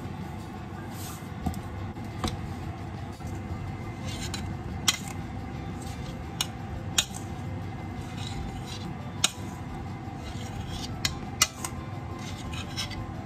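Metal spoon clinking against a stainless steel colander and a glass mixing bowl while boiled potato chunks are scooped across, with sharp clinks every second or two over a steady low background noise.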